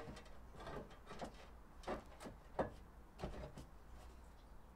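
Faint, irregular clicks and knocks, about eight in a few seconds, from hand tools and metal parts as a detachable tow bar is fitted under the rear bumper of a Land Rover Discovery.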